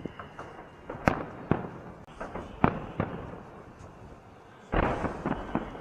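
Fireworks shells bursting overhead: a string of sharp bangs with a rolling echo, spaced roughly a second apart. Near the end comes a denser run of crackling bursts with a low rumble.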